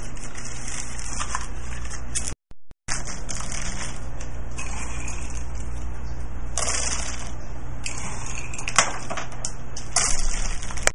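A steady whirring hum, like a small motor running, with a few short clatters near the end.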